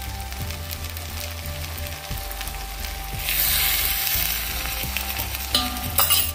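Water poured into a hot kadai of frying kidney-bean and potato curry, hissing and sizzling for about two seconds starting around three seconds in, over the steady sizzle of the curry in the pan.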